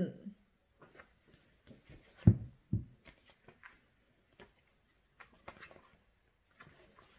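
Paperback picture book being handled and opened: light taps and rustles of the cover and pages, with two dull thumps a half-second apart about two seconds in.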